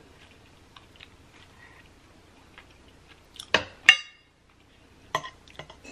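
Knife and fork clinking against a ceramic plate while cutting pot roast: faint small ticks, then two sharp clinks a little past the middle, the second ringing briefly, and a few lighter clicks near the end. Soft chewing and mouth clicks lie under it.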